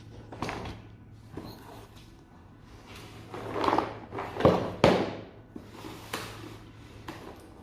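A cardboard jigsaw puzzle box being opened and handled: scattered clicks and scraping, rustling strokes, loudest in a cluster of scrapes and knocks about halfway through.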